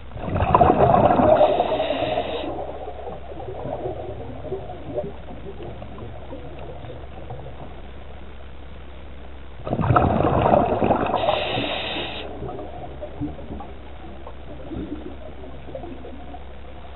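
Scuba diver breathing through a regulator underwater: two breaths about nine seconds apart, each a loud burst of exhaled bubbles burbling and then fading, with a higher hiss near the end of each. A steady low hum lies underneath.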